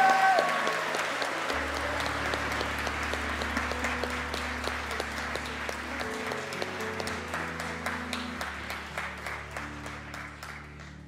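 Congregation applauding, the clapping thinning out and dying away near the end. Soft music with held low chords comes in after about a second and a half.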